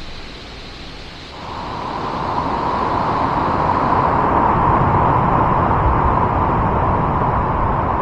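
Waterfall: water pouring over a rock lip and crashing into the gorge below, a steady rushing noise that swells about a second in and then holds loud.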